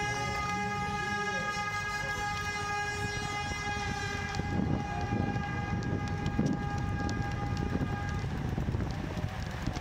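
Start horns sounding a long, steady blast as the signal to start the ride. One horn drops out about four seconds in, and the other holds until it cuts off about eight seconds in.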